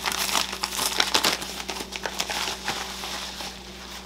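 Yellow padded paper mailer envelope being pulled open and handled, its paper crinkling and crackling in quick irregular bursts. The crinkling thins out and gets quieter near the end.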